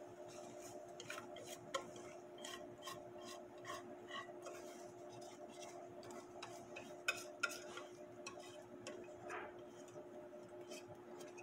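Faint scattered clicks, taps and light scraping as thick cake batter is poured and scraped out of a mixing bowl into an aluminium ring cake pan, over a steady low hum. A couple of sharper clicks come about seven seconds in.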